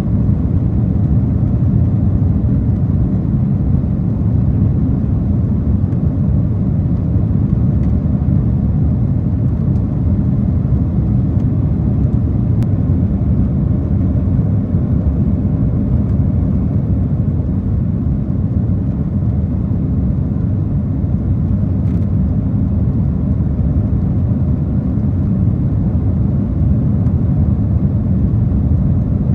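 Steady cabin noise of a Boeing 767-400ER in its climb after takeoff: a low, even roar of the twin jet engines and the airflow past the fuselage, heard from inside the cabin.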